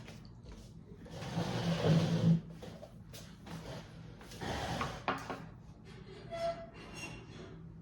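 Packaging handled while being opened: a long scraping, sliding rub, then a shorter one, with a few light knocks in between.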